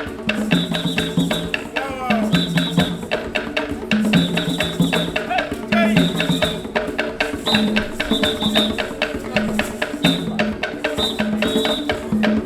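Live percussion music from street entertainers: drums and dense clicking percussion over a short low melodic phrase that repeats about every two seconds.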